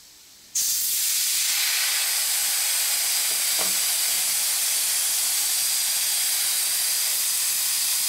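Compressed air hissing steadily out of an air compressor's tank through its opened outlet valve, bleeding the tank pressure down from about 60 PSI. The hiss starts suddenly about half a second in.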